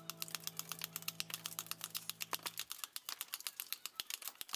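Rapid light strikes of a small stonemason's pointed hammer dressing the face of a stone block, about eight to ten sharp taps a second. A low steady hum underneath stops about halfway through.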